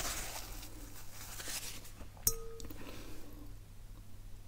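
A paper napkin rustles as it is wiped across the mouth. About two seconds in, a drinking glass gives one short clink that rings briefly.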